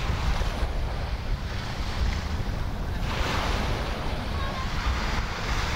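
Sea waves washing up on a beach, with wind buffeting the microphone; the wash of a wave swells up about three seconds in.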